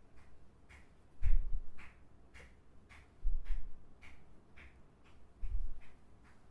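Close-miked ear-cleaning and head-massage handling: light clicking taps about twice a second, with a heavier dull thump about every two seconds.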